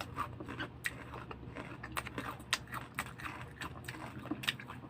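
Crunching and chewing of crispy chicharon close to the microphone: a run of irregular sharp crackles.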